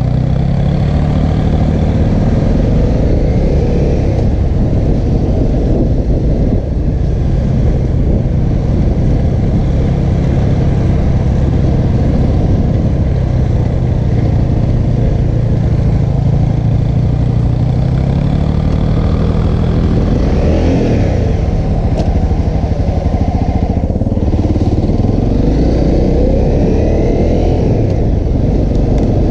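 Honda CRF250L's single-cylinder four-stroke engine running steadily under way, its pitch easing down and rising again a few times as the throttle is worked.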